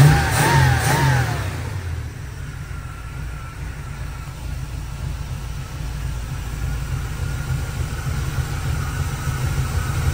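GM Performance crate 350 small-block V8 with a carburetor, blipped briefly at the throttle near the start, then settling back to a steady idle as it warms up, through a loud exhaust.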